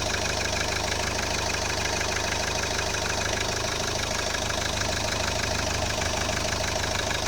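Toyota Corolla 1.4 D-4D four-cylinder turbodiesel idling steadily with its cap open, a fast, even ticking clatter over the running engine: the strange sound that the owner is asking about.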